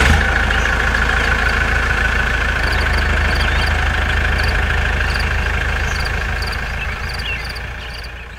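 Tractor engine running steadily, fading out near the end.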